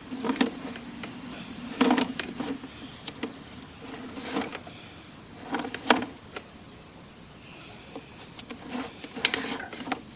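A sewer inspection camera's push cable being fed through a drain pipe, with irregular rattling clatters and scrapes in scattered bunches. The loudest come about two, six and nine seconds in.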